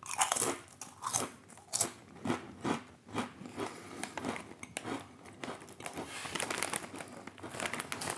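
Crunchy potato crisps being bitten and chewed: sharp crunches about twice a second at first, turning to softer, quicker chewing after a few seconds.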